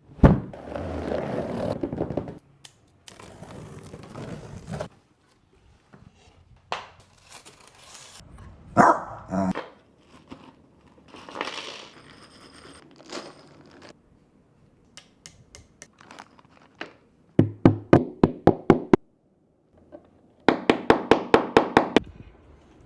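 Packaging being handled and opened for a shoe rack: crinkling plastic and cardboard, rustling and thunks. Later, two quick runs of sharp, regular clicks or knocks, about six a second, are the loudest sounds.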